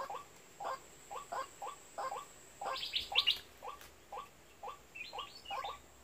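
White-breasted waterhen calling: a fast run of short, hoarse notes, about three a second and often in pairs. The loudest part is a cluster of higher, sharper notes about halfway through, and a few more come near the end.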